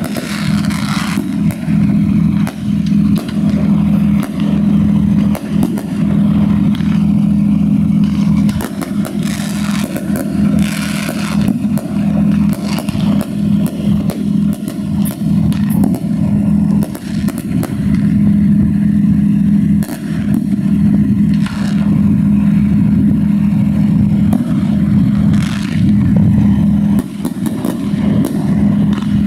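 Aerial fireworks going off in a dense, continuous barrage of bangs and crackles, over a steady low drone.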